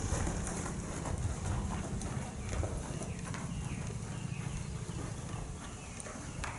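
Horse trotting on sand arena footing: soft, regular hoofbeats, with a low steady rumble underneath.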